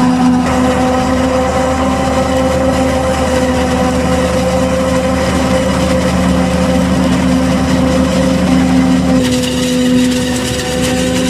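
New Holland FR500 forage harvester chopping maize, running steadily alongside a Fendt Farmer 311LSA tractor, the engines and chopper blending into one steady hum. About nine seconds in, the sound turns harsher and hissier.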